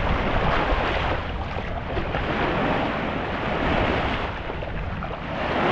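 Sea waves washing on the shore, with wind rumbling on the microphone.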